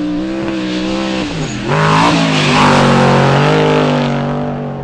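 Desert-racing trophy truck running hard at high revs over dirt. The engine pitch dips about a second in, then the truck gets louder with a rush of tyre and dirt noise, fading toward the end.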